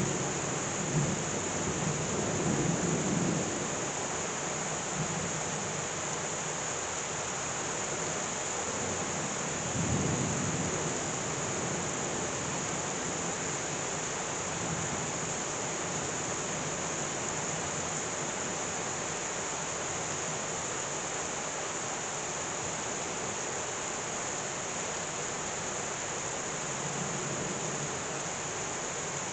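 Heavy rain pouring down steadily, with low rumbles of thunder in the first few seconds and again about ten seconds in.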